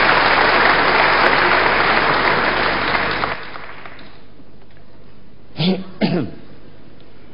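Large assembly audience applauding, which cuts off sharply about halfway through. A couple of short coughs follow in the quieter hall.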